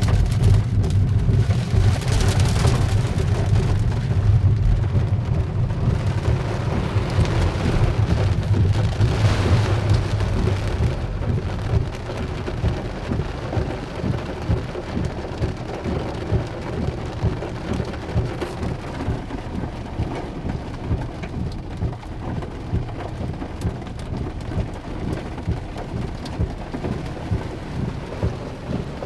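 Heavy rain mixed with hail pouring down, a dense steady hiss with a strong low rumble for the first ten seconds or so, after which the downpour eases slightly.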